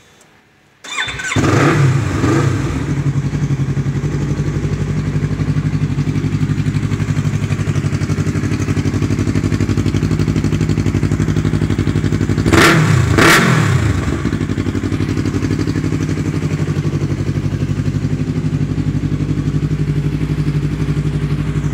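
Yamaha R3's 321 cc parallel-twin engine through an Akrapovic full-system exhaust, starting about a second in with a brief flare of revs and then settling into a steady idle. About halfway through it is revved twice in quick succession, then drops back to idle.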